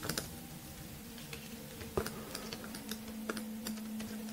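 Scattered light clicks and taps at a computer keyboard, a few in a row at irregular times, over a faint low steady hum.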